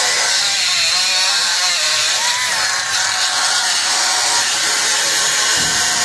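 Air-powered grinder running steadily as it cuts into the metal hub of a condenser fan blade, its pitch wavering as it bites into the metal.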